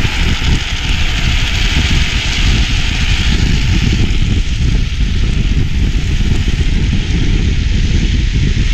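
Drift trikes rolling and sliding downhill on asphalt: a steady hiss from the hard plastic-sleeved rear wheels on the road, with wind rumbling over the microphone.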